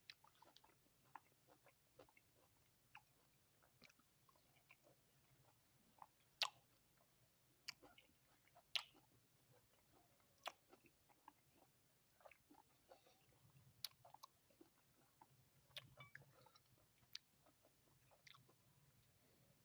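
Quiet, close-up chewing of sweet lime (mausami) segments: irregular small wet clicks and smacks, with a few sharper ones now and then.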